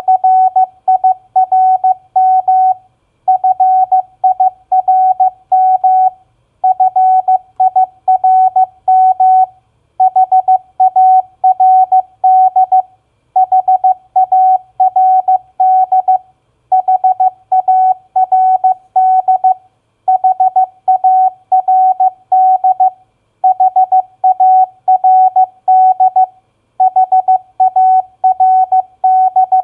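Morse code sent as a single steady beep tone at 15 words per minute, spelling out common four-letter practice words. The words come one after another, about one every three seconds with a short pause between, nine in all.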